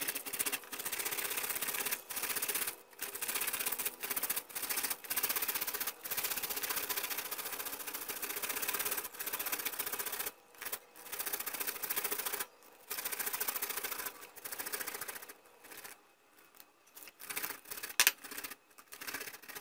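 Cabbage being grated on a hand-held stainless steel grater: a rasping scrape in repeated strokes, about one a second, with short gaps between them. Over the last few seconds the strokes come fewer and more scattered.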